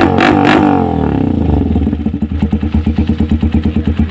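Honda TMX 125 single-cylinder engine through an aftermarket SC Project canister exhaust. It is revved, its pitch swinging up and down, then drops back about a second and a half in to an even, rapid idle pulse. It is noisy even with steel wool stuffed into the silencer to tame it.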